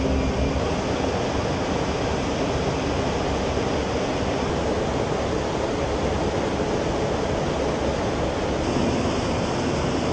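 Steady rushing noise inside an aircraft flight deck in flight: engine and airflow noise, with no change in pitch or rhythm.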